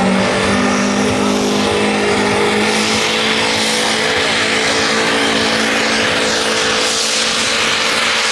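Compact diesel pulling tractor, a BM Victor, running flat out at a steady pitch while dragging the weight sled down the track, pouring black smoke. A rushing noise swells in over it from about three seconds in.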